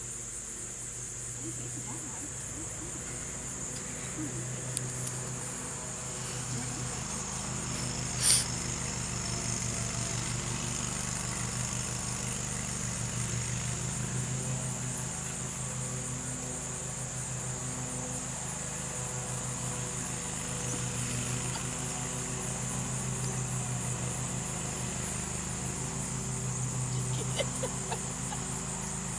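Steady high-pitched insect chorus over a low steady hum, with one sharp click about eight seconds in.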